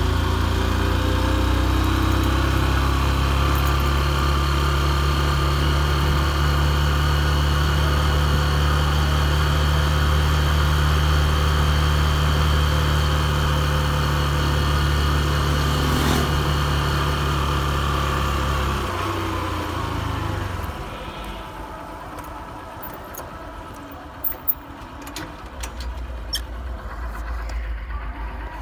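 Motorcycle engine running steadily while it is ridden. About two-thirds of the way through the revs fall away and the sound drops much quieter, with two sharp clicks a few seconds later.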